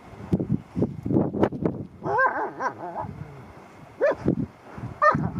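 A husky and a black German shepherd play-fighting and vocalising: low, rough growling with a few high, rising-and-falling yips.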